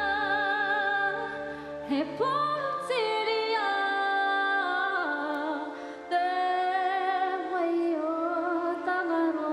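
A woman singing solo in long, held notes with vibrato, sliding between pitches. A low steady tone sounds under her voice for the first few seconds, then drops away.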